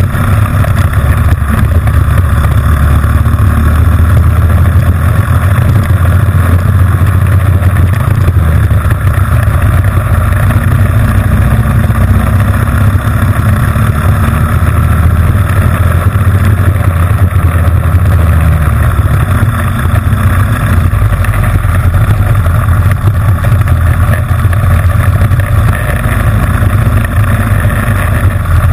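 Honda GX160 single-cylinder four-stroke engine running hard and steady under race load, heard close up from a camera mounted on the machine itself.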